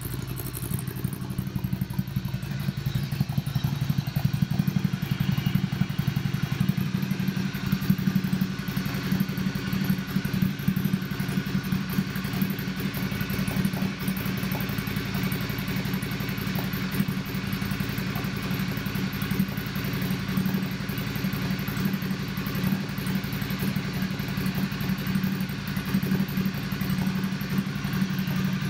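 Ducati Scrambler's air-cooled L-twin idling steadily through a Termignoni SO01 carbon-tip slip-on exhaust with its dB killer removed, which makes it louder.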